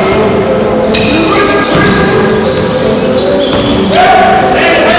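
Loud music with sustained notes changing every second or so, over a basketball being dribbled on a hardwood gym floor.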